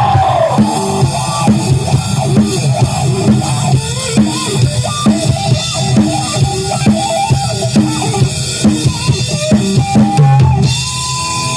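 Live rock band playing an instrumental break: a drum kit with bass drum and snare keeps a steady beat, with a lead melody line over it. Near the end the drums ease off under a long held note.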